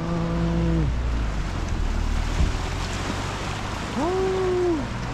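Sea waves washing against shoreline rocks under a steady rush, with wind rumbling on the microphone. A drawn-out vocal "wow" trails off in the first second, and another short exclamation rises and falls about four seconds in.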